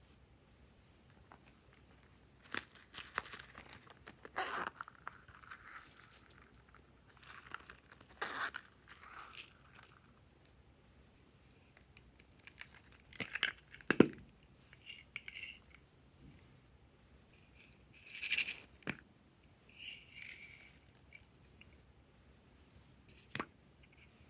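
Clear slime being handled and mixed by hand: scattered crackles, clicks and short squishing rustles, with one sharp click a little past the middle.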